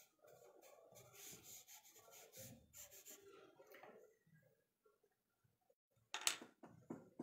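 Charcoal pencil scratching and rubbing on sketchbook paper in quick, faint, repeated strokes for about four seconds, then a pause. Near the end comes one brief, louder noise.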